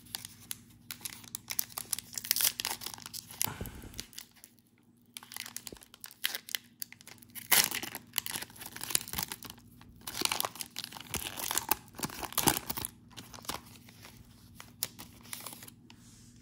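An NBA Hoops trading-card pack's wrapper being torn open and crinkled by hand: irregular crackling rips and rustles with short pauses between, and a low thump about four seconds in.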